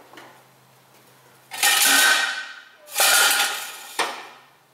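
Metal clattering and scraping as a new catalytic converter and exhaust pipe are worked up into place against the exhaust flange under the car: two rough bursts of about a second each, the second ending in a sharp knock.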